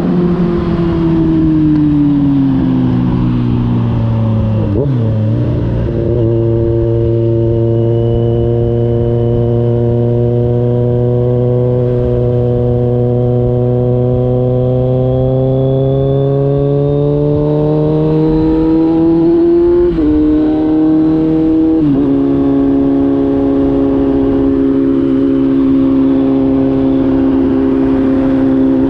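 Kawasaki Z900 inline-four engine running through an SC-Project GP1 exhaust. The engine note falls over the first few seconds, then holds and climbs slowly for a long stretch. Twice in quick succession, about two-thirds of the way through, the pitch jumps abruptly.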